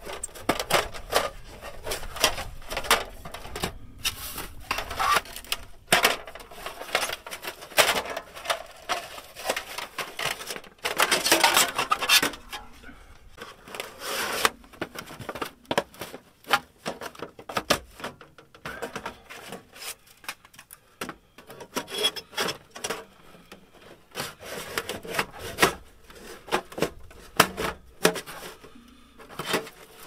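Irregular rubbing, scraping and light knocks of objects being handled close by, with a longer rasping scrape of about a second and a half around eleven seconds in.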